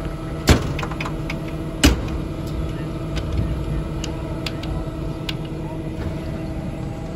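Fire truck aerial tower in operation: the engine and hydraulics run with a steady hum and a constant tone while the HP95 platform is lowered. Two sharp clunks come about half a second and two seconds in, with lighter ticks after them.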